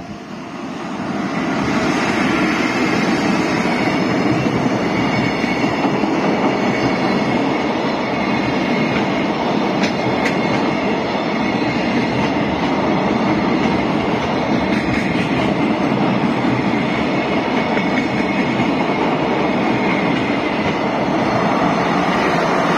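Freight train passing over a level crossing: a steady, loud rumble and clatter of wagon wheels on the rails, building up over the first couple of seconds.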